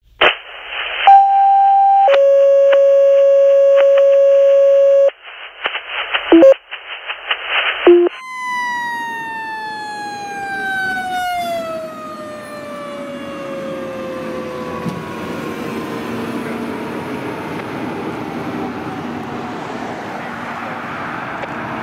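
Radio dispatch paging tones, a short higher tone then a long steady lower one, followed by a crackly radio transmission. Then a fire engine's siren falls slowly in pitch over several seconds as the engine drives past, over engine and tyre noise.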